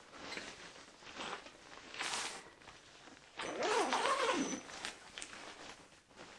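Fabric of a Snugpak Special Forces bivvy bag rustling in several bursts as it is smoothed and tucked into place by hand, the longest about halfway through.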